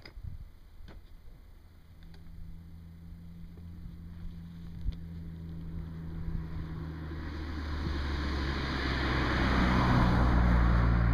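A car approaching along the road, its engine hum and tyre noise growing steadily louder as it nears.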